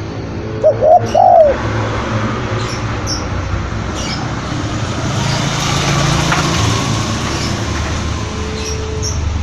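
Male spotted dove cooing: two rising-and-falling coos about a second in, over a steady background hiss, with faint high chirps of small birds.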